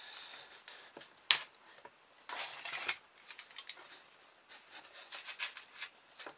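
Utility knife slicing through thin polystyrene foam sheet: a run of short scratchy crackles and scrapes as the blade drags through the foam. A sharp click comes about a second in, and a longer rasping scrape follows about a second later.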